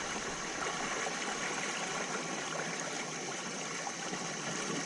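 Steady rush of flowing creek water, a high-up stream running over its bed.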